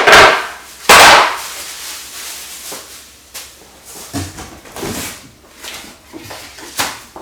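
Chair parts and packaging being handled: two loud scraping, clattering bursts about a second apart, followed by lighter knocks and rustles.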